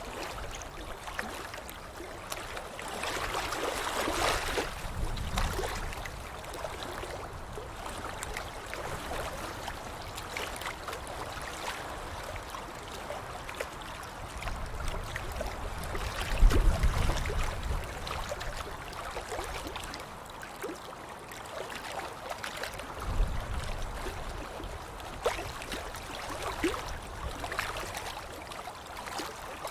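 Water splashing and sloshing, scattered throughout with small droplet ticks. Heavier splashes with a low thud come about sixteen seconds in and again around twenty-three seconds.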